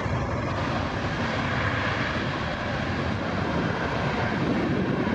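Engines of a widebody (heavy) jet airliner passing low overhead on final approach, a steady loud rush of jet noise.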